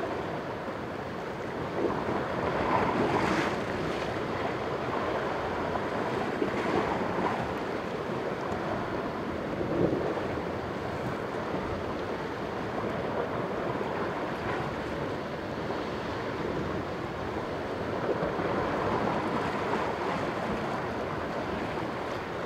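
Sea surf washing against the rocks at the foot of a cliff, swelling and easing every few seconds, with wind on the microphone.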